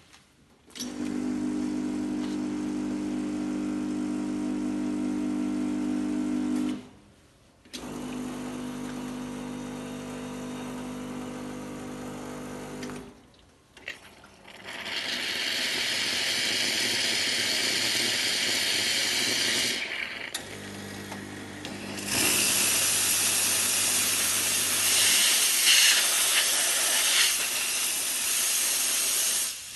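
WeGa espresso machine: the pump hums steadily in two runs of several seconds, then the steam wand hisses. After a short pause the wand hisses again, louder, with the pump humming under it for the first few seconds.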